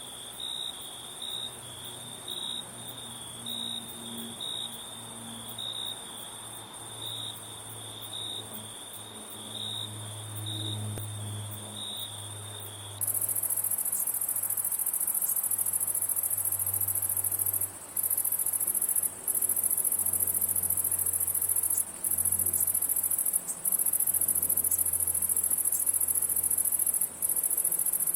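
Crickets chirping: a regular, slow, high chirp repeating about one and a half times a second over a fainter, higher continuous trill. About 13 seconds in it switches abruptly to a louder, unbroken, very high-pitched insect trill with a few brief breaks.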